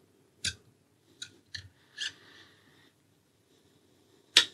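Air rifle barrel being pushed into its metal block: a few light metal clicks with a brief scrape, then one sharp click near the end, the loudest.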